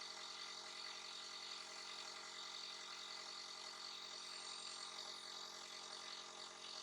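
A small electric motor running with a steady, even hum.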